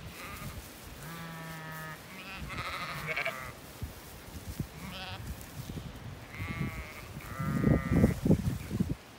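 Zwartbles sheep bleating, about five separate calls over several seconds, with a burst of low rustling noise near the end.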